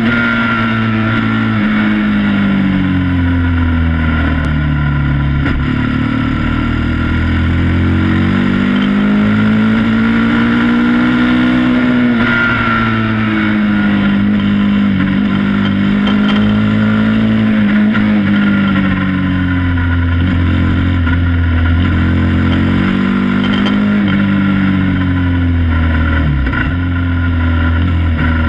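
Sport quad (ATV) engine running at road speed, its pitch slowly rising and falling several times as the throttle is opened and eased.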